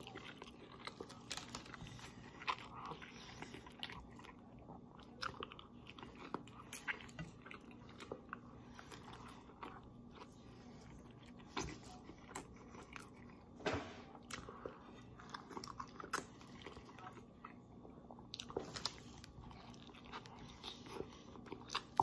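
A person eating fusilli pasta in pesto straight off a plate with his mouth alone: faint, irregular chewing, lip smacks and mouth clicks.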